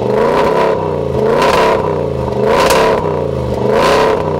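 A 2014 Range Rover Sport's supercharged V8 heard close at its tailpipe, revving up and falling back four times, about once every second and a bit.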